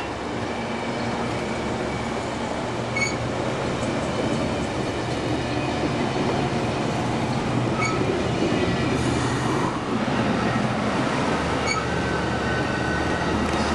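Amtrak Amfleet passenger cars rolling past at close range, a steady rumble of steel wheels on rail that grows slightly louder. A brief high squeak recurs about every four seconds.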